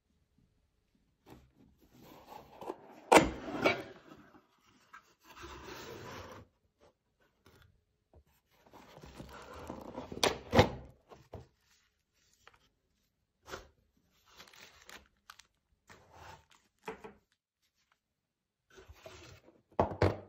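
Handling noises: rubbing and scraping, with scattered light knocks and two sharp clicks about seven seconds apart that stand out as the loudest sounds.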